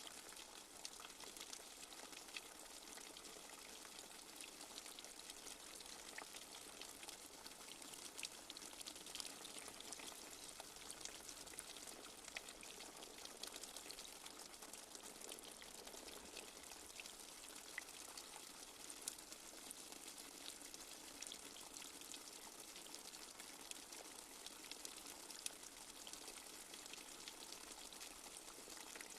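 Light rain falling steadily: a soft, even hiss with scattered drops ticking through it.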